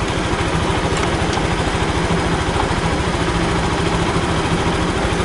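Suzuki Burgman 125 fuel-injected scooter's single-cylinder four-stroke engine idling steadily, with an even low pulse.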